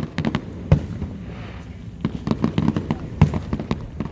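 Fireworks going off in quick succession: a rapid string of sharp bangs and crackles, with two louder booms, one under a second in and one just past three seconds.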